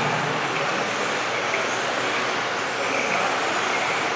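Electric 1/10-scale RC touring cars racing on a carpet track: a steady wash of motor whine and tyre noise, with faint whines rising and falling as cars accelerate and pass.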